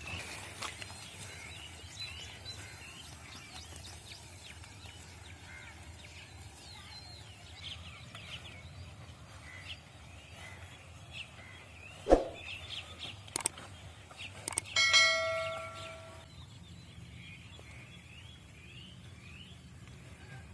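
Open-field ambience with small birds chirping on and off throughout. A single sharp knock comes a little past halfway, the loudest sound. A couple of seconds later a short bell-like ringing tone fades out over about a second.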